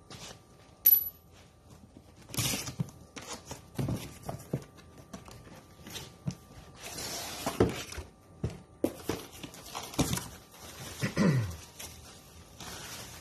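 Cardboard propeller box being opened and handled, with flaps scraping and knocking, then a plastic bag rustling as the propeller is unwrapped. A sharp, brief click about a second in is the loudest sound.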